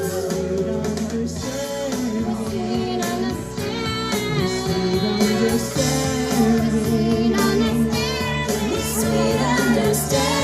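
A man and a woman singing a duet into hand microphones over instrumental backing music, karaoke style.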